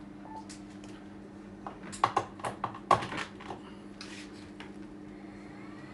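Radio equipment controls being operated: a short beep, then a quick run of sharp button and switch clicks about two seconds in, over a steady electrical hum.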